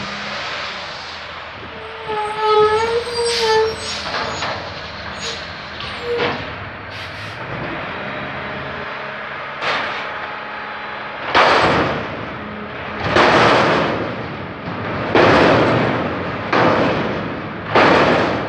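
Front-loader garbage truck running steadily, with a brief brake squeal about two seconds in. From about eleven seconds it lifts a dumpster over its cab on its forks and empties it, giving a run of loud noisy surges about every one and a half to two seconds.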